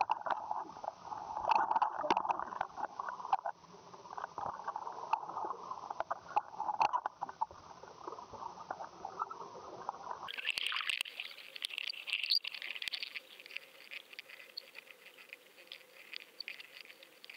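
Muffled water rush with scattered clicks and knocks, picked up by the microphone of a camera in an underwater housing as it is pulled through the water on a fishing line. About ten seconds in, the sound turns abruptly brighter and hissier, with denser clicking.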